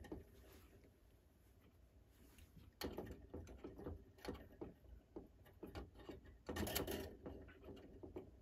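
Faint, scattered clicks and taps of small brass clock wheels and parts being handled and set into a clock movement, starting about three seconds in, with a short cluster of taps near the end.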